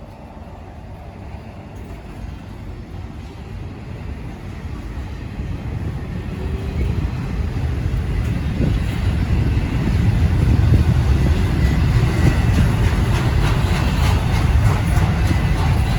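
Approaching Norfolk Southern freight train led by EMD SD70ACe diesel-electric locomotives, a deep rumble that grows steadily louder over about ten seconds and then holds. Wind buffets the microphone.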